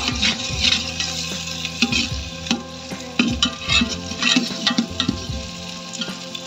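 A metal spoon stirring and scraping chopped green garlic and browned onions around a metal pot, over the sizzle of the hot oil they are frying in. The scraping strokes come a couple or more times a second.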